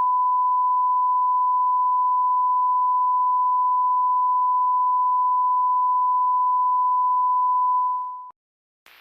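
A steady 1 kHz broadcast tone: a single pure beep held unchanged at one pitch and level. It fades out about eight seconds in.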